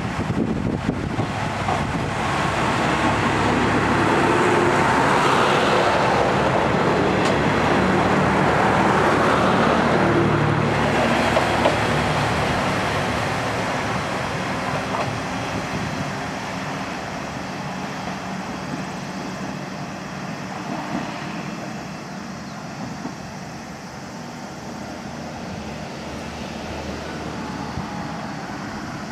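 Kanto Railway KiHa 350 diesel railcar, a rebuilt ex-JNR KiHa 35, pulling out of the station with its engine working as it accelerates. The sound builds to its loudest a few seconds in as the train passes, then fades steadily as it draws away down the line.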